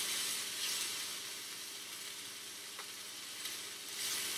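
Onions frying in butter and oil in a hot pan: a steady sizzle that swells briefly near the start and again near the end.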